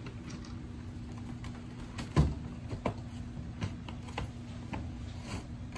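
Handling noise as a sneaker is reached for and taken down from a shelf of plastic shoe boxes: scattered light clicks and knocks, with one louder thump about two seconds in, over a low steady hum.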